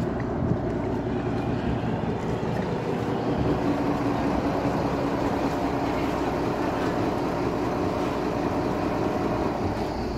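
A tour boat's engine running steadily, an even mechanical sound with no change in speed.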